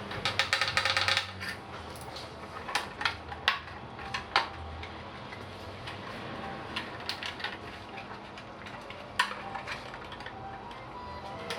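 Small metal tools and parts clinking and clicking as they are handled during repair work on a Tacx Flux smart trainer. A rapid run of ticks opens it, then come scattered single clicks, with sharp ones about three and a half, four and a half and nine seconds in.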